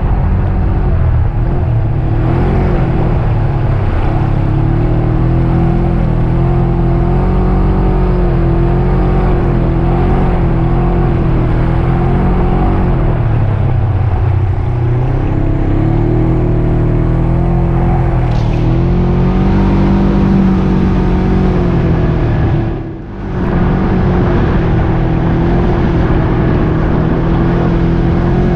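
Polaris RZR 900 S side-by-side's engine running under way, its pitch rising and falling with the throttle. About three quarters of the way through it drops off briefly before picking back up.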